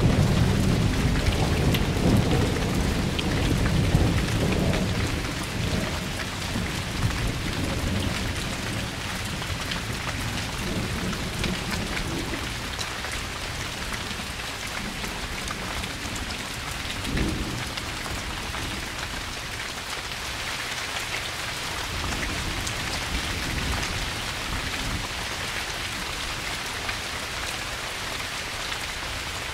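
Steady rain falling, with thunder rumbling loudly at the start and dying away over the first several seconds, then a brief low rumble of thunder about halfway through and fainter rumbles later.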